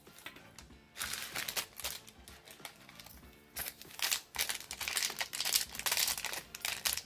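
Small sealed plastic packet crinkling as it is handled and turned over, in irregular rustles that start about a second in and grow busier and louder from about three and a half seconds.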